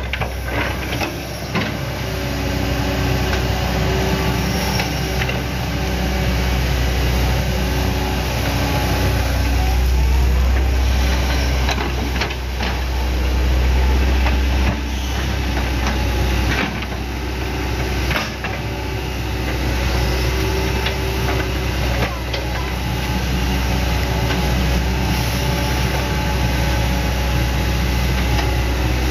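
Hitachi Zaxis 110MF excavator's diesel engine running steadily under load while the hydraulics work the boom and bucket, with a few sharp knocks spread through.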